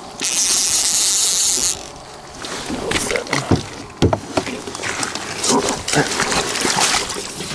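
A loud hiss for about the first second and a half, then scattered knocks, clicks and rattles of gear being handled on a plastic fishing kayak.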